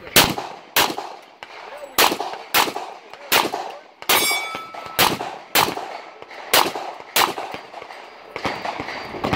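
Glock pistol firing a string of shots, mostly in quick pairs about half a second apart, around ten shots in all. Each sharp crack trails off briefly.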